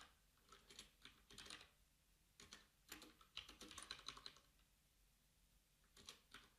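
Faint computer keyboard typing in short runs of keystrokes, with a pause of about a second and a half near the end.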